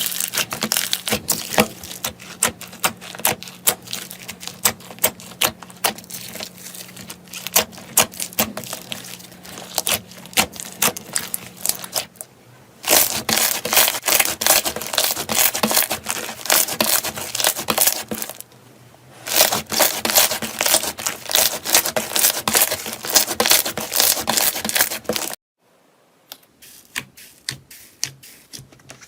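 Slime being pressed and squeezed by hand, giving a dense run of sharp crackles and clicks. It comes in several separate takes that cut off abruptly, and the last one, near the end, is faint and sparse.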